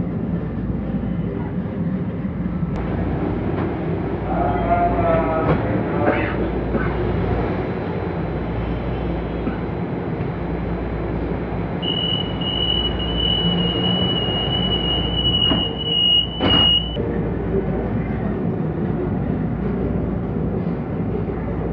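Commuter rail car rumbling along at a station. With the doors open, a steady high warning tone sounds for about five seconds from about twelve seconds in, and ends with a sharp knock as the doors shut; the rumble carries on as the train moves off.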